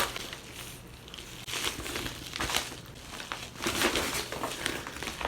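Shipping package crinkling and crackling in bursts as it is handled and pulled at in an attempt to open it by hand.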